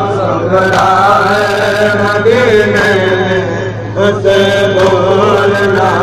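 Men's voices chanting a nauha, a Shia Muharram lament, in sustained, drawn-out lines over loudspeakers, with a steady low hum beneath. A few sharp slaps sound at irregular moments.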